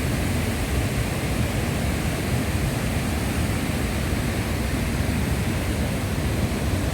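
Steady rushing of a fast river and its waterfalls, an even unbroken roar of water.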